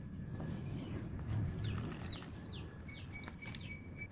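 A small bird chirping, a run of short falling chirps about twice a second, over a steady low background rumble. A thin steady tone sounds alongside near the end.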